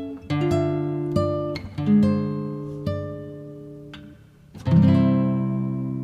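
Background music on a plucked string instrument: chords struck about once a second and fading, with a louder final chord about five seconds in that rings on.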